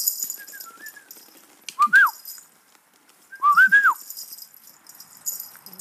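A bunch of keys jangled in a hand above playing puppies, shaken hardest at the start and again near the end. Twice, short high whistle-like squeals rise and fall, a single one about two seconds in and a quick run of them around three and a half seconds.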